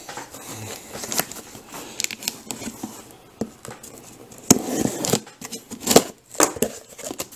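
Utility knife slicing through the packing tape along the seam of a sealed cardboard shipping box: scratchy scraping of blade on tape and cardboard, with several sharp clicks and taps of hands on the box.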